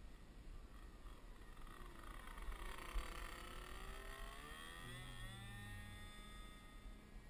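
Small two-stroke petrol engine (Evolution GX10, 10cc) of a radio-controlled model plane flying past, loudest about three seconds in. Its note falls in pitch as it passes, then rises and holds steady near the end, under a low wind rumble.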